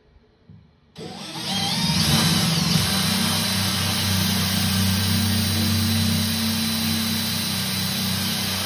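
Cordless drill with a tile drill bit boring through a wall tile: it starts suddenly about a second in and then runs steadily.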